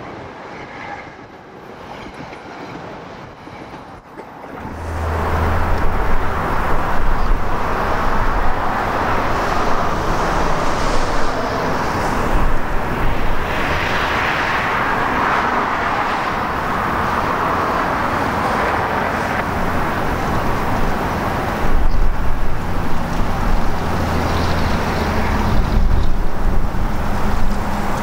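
Road traffic passing on a street beside the tracks, mixed with wind on the microphone; it jumps to a loud, steady rush about five seconds in. The first few seconds are quieter: an NJ Transit Arrow electric multiple-unit train rolling past.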